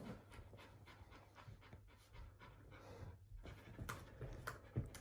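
Siberian husky panting faintly in quick, even breaths, with a few soft clicks near the end.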